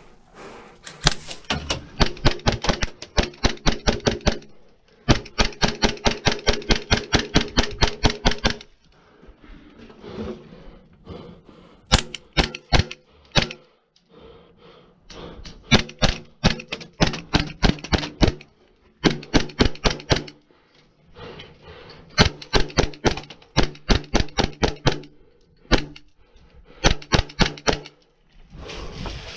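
Airsoft rifle firing full-auto bursts: about seven strings of rapid, evenly spaced clicks over a steady hum, each one to three and a half seconds long, with short pauses between.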